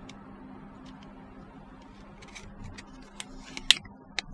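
Grey plastic parts of an Airfix Fairey Gannet kit handled and pressed together as the undercarriage bays are dry test-fitted into a wing: a scatter of small clicks and taps, the sharpest near the end, over a steady low hum.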